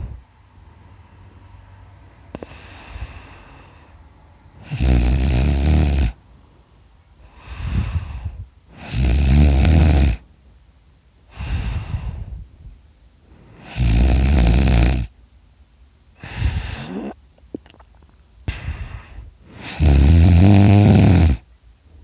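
A person snoring very loud: four heavy snores, each lasting about a second, come roughly every five seconds, with softer breaths between them.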